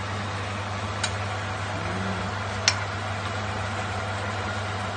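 Steady hum and hiss of a kitchen stove with the tinola simmering in the wok, and two sharp clicks, about one second and nearly three seconds in, of a ladle knocking against the wok.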